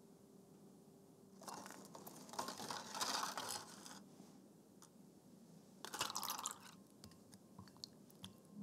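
Dry gelatine sheets crinkling and crackling as fingers handle them and press them into a glass bowl, in two spells about two seconds apart, then a few light clicks.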